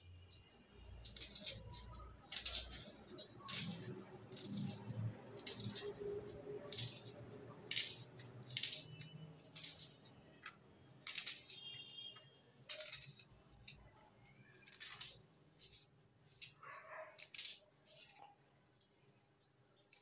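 Small knife cutting and peeling the papery skin of an onion: a run of short, crisp scrapes and crackles, irregular, about one or two a second.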